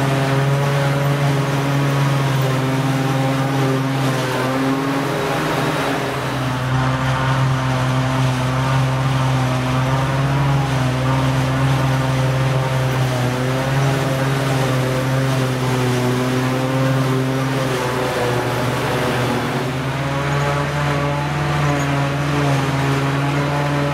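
Claas self-propelled forage harvester picking up and chopping grass, its engine and chopping drum running under load with a steady, even drone, with the tractor and silage trailer driving alongside.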